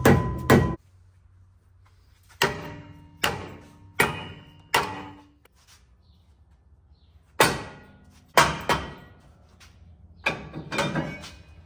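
Repeated mallet blows on a pickup's rear brake rotor and hub to knock the rotor loose, each blow a sharp knock with a brief metallic ring. The blows come in bursts with pauses: two at the start, four about a second apart, a few more later and a quicker run near the end.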